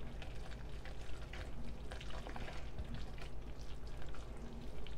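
Silicone spatula stirring thick, hot praline mixture of sugar, butter, evaporated milk and pecans in a glass bowl: faint, irregular wet scraping and small clicks against the glass. This is the final stir of the candy mixture before it is spooned out.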